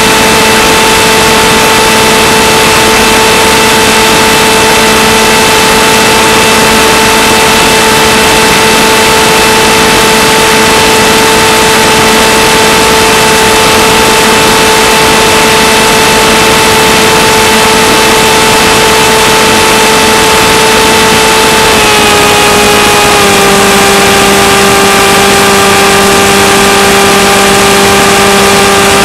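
Electric motor and propeller of an FPV model plane picked up by the onboard camera's microphone: a steady, loud drone with a pitched whine over heavy hiss. About 22 seconds in the whine drops a step in pitch as the autopilot eases the throttle.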